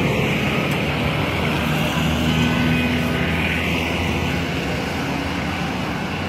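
Steady road traffic noise: a vehicle engine's low hum under a constant broad hiss, easing slightly after about four seconds.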